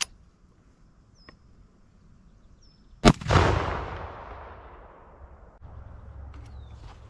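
A single very loud shotgun blast from a "Boom Boom" concussion round, a shell sold as a 182-decibel concussion load, about three seconds in. A long rumbling echo follows and dies away over about two seconds.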